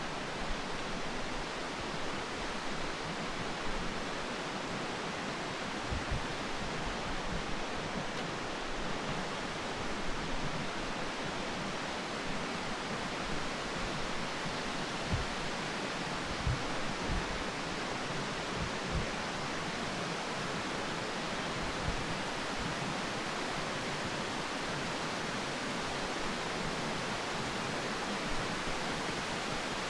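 Steady rushing of flowing mountain water, like a stream or cascade, with a few soft low thumps scattered through it.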